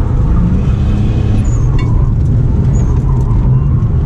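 Car engine running as the car is driven, heard from inside the cabin, its pitch rising and falling slightly with the throttle.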